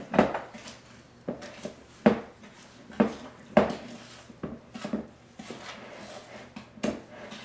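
Wooden spoon stirring and beating a soft mix of creamed butter, sugar and milk in a plastic mixing bowl: irregular scrapes and knocks against the bowl, about one or two a second.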